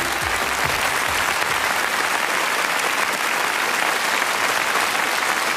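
Studio audience applauding steadily as the song ends, with the last of the music fading out in the first second or so.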